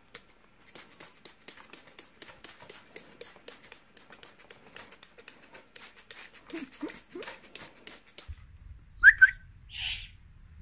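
Owl on a tabletop making a rapid, irregular run of sharp clicks, with a few short low calls about two-thirds of the way through. Near the end comes a short high chirp, the loudest sound, followed by a brief hiss.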